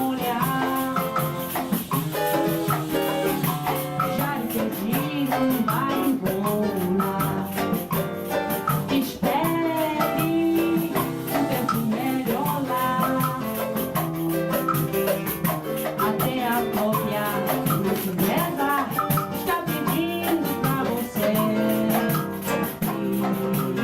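Samba group playing live: plucked cavaquinho and seven-string guitar over a steady, fast rattle of hand percussion such as pandeiro and shaker.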